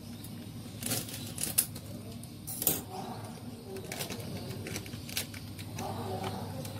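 Plastic packet of custard powder crinkling and crackling as it is handled and snipped open with scissors, in a string of sharp, separate clicks and crackles.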